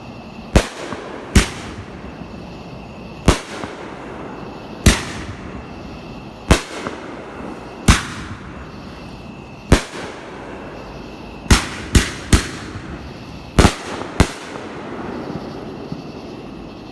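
Fireworks going off: about a dozen sharp, loud bangs at uneven intervals, several coming in quick succession about two-thirds of the way through, each trailing a short echo.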